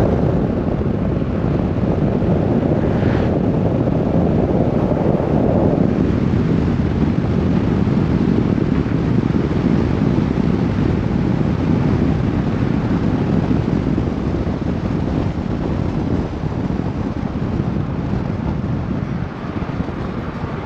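Steady wind buffeting on a microphone mounted outside a moving car, mixed with road and tyre noise from the car driving along.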